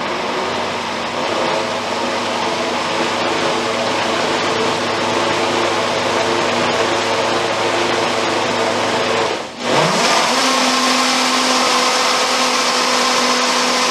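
Waring high-powered commercial blender running at high speed, puréeing hummus smooth. About two thirds of the way through, the sound drops out sharply for a moment and comes back with a quick rising whine before settling into a steady run again.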